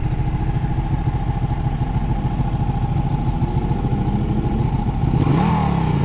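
Sport motorcycle engine running steadily at low revs, its exhaust pulsing evenly.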